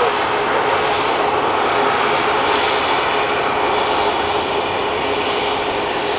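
Boeing 737 MAX 10's CFM LEAP-1B turbofan engines running at taxi power as the jet rolls slowly along the taxiway: a steady jet rush with a constant whine.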